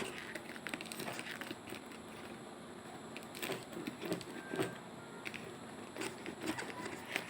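Handling noise from a parcel being opened: scattered taps, clicks and short rustles of packaging.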